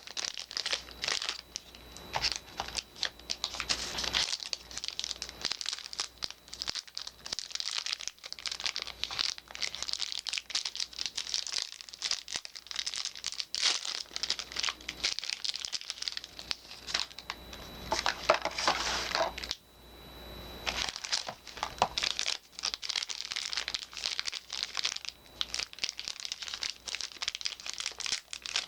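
Soap wrappers crinkling and tearing as bars of soap are unwrapped by hand, a dense crackly rustle with a brief pause about two-thirds of the way through.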